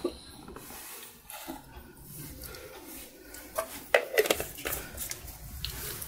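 Faint handling noises: a few light clicks and taps of small objects being moved on a tabletop, clustered about four seconds in, with one more near the end.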